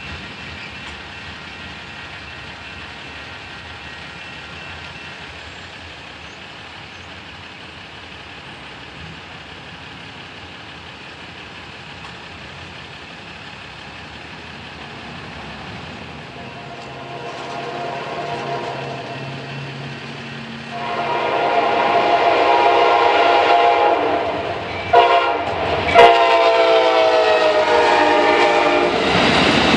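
Amtrak passenger train with two GE Genesis diesel locomotives approaching and passing a grade crossing. A low engine rumble grows about halfway through, then the chime horn blows loudly for the last third and falls in pitch as the locomotives go by. Two sharp knocks come near the end.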